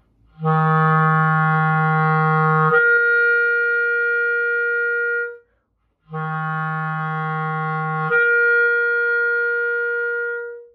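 Clarinet playing a low F and slurring straight up a twelfth to middle C by opening the register key, holding the C for a few seconds. It is played twice, with a short break between.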